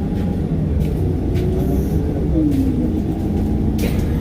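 City bus engine running with a steady low rumble, its pitch dropping about two and a half seconds in.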